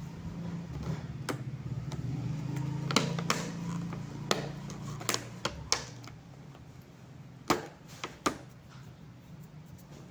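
Packaging being handled during an unboxing: scattered clicks and knocks over a low hum that fades about halfway through.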